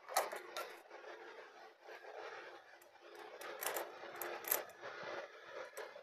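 Pliers and a timing chain clicking and rattling lightly against a motorcycle's camshaft sprocket as the chain is moved one tooth to correct the valve timing. Scattered faint metallic clicks, with a couple of louder ones past the middle.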